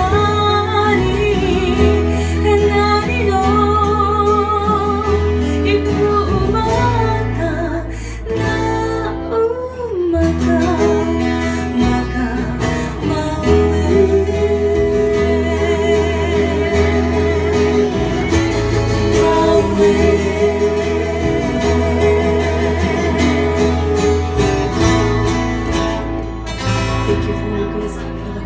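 Live band playing a Hawaiian song: a singing voice over strummed acoustic guitars and an electric bass line.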